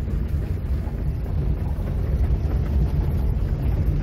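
Steady low rumble of a car rolling slowly over a cobblestone street, heard from inside the cabin.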